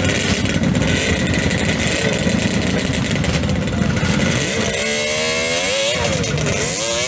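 Motorcycle engines running as bikes pull away one after another. About five seconds in, one engine is revved in a long rising climb, then revved again near the end.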